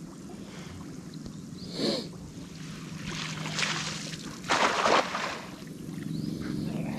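Water sloshing and splashing, with two louder splashes about three seconds in and again around four and a half seconds.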